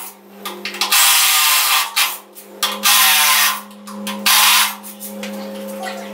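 Handheld power tool running in three short bursts of about a second each, over a steady low hum.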